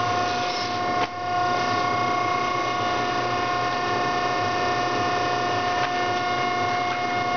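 Challenge Titan 265 paper cutter's motor running with a steady whine, and a sharp click about a second in.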